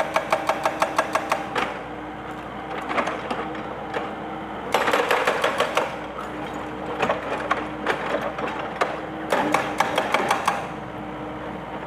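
Excavator-mounted hydraulic breaker hammering concrete in three bursts of rapid blows, about nine a second, the first cutting off about a second and a half in, the others coming about five and nine and a half seconds in. The excavator's engine runs steadily between bursts.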